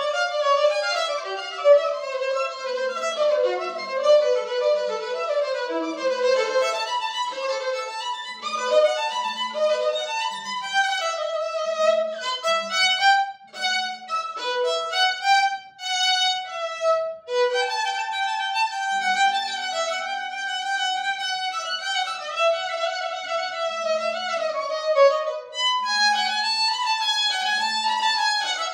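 Solo violin played with the bow in a classical concerto passage: quick runs of notes, with a few longer held notes in between.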